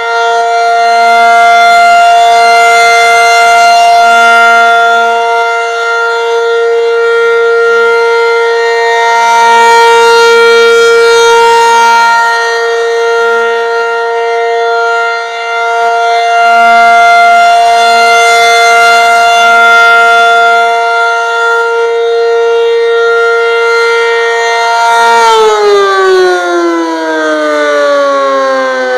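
Federal Signal 500-DH-TT outdoor warning siren sounding a steady alert tone, swelling and fading in loudness every several seconds. About 25 seconds in the tone stops rising and the pitch slides steadily down as the siren winds down at the end of its three-minute alert signal.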